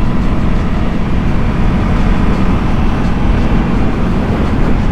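Aprilia RS660 parallel-twin engine running at steady revs while the motorcycle is ridden, mixed with a steady low rumble of wind noise.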